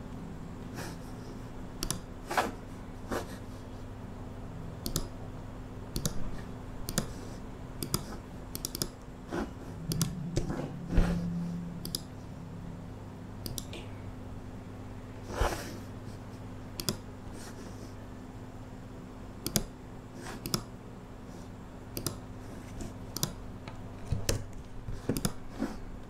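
Irregular clicks of a computer mouse and keyboard being used at a desk, roughly one every second or so, over a steady low hum.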